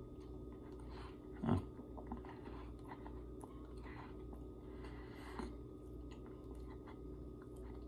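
A person chewing a mouthful of peanut butter and banana sandwich close to the microphone, over a steady low hum. One short, louder sound comes about a second and a half in.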